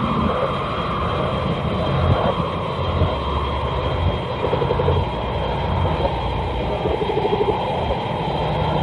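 Hedorah monster sound effect from the 1971 Showa Godzilla film: a dense, steady rumbling din with pulsing low tones and a faint high whine.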